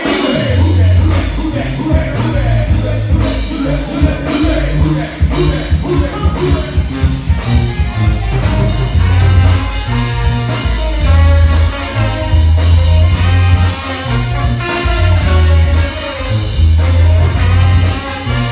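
New Orleans brass band playing live: a sousaphone bass line and drum kit, with a vocalist singing at first and trumpets, trombone and saxophone playing together from about halfway.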